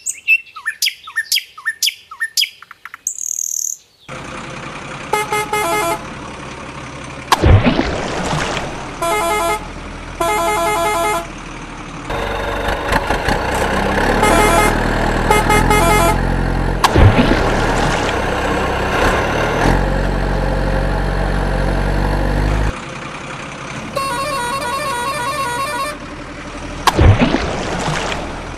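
Birds chirping for the first few seconds, then a truck engine running with repeated horn honks. Three sudden loud hits cut through it, the last one near the end a splash of water as a toy truck lands in a stream.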